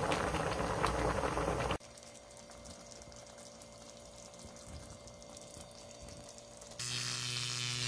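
Spicy braised dried pollack (kodari jorim) boiling hard in a shallow pan, a dense bubbling and popping that cuts off suddenly about two seconds in. A quiet stretch with a faint hum follows, and near the end a steady electric buzz starts.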